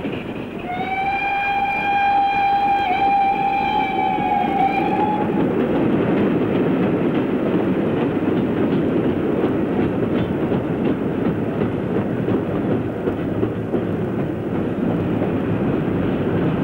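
A steam locomotive whistle blows one long, steady note for about four seconds, over the continuous rumble of a passing train. The train runs on alone after the whistle stops.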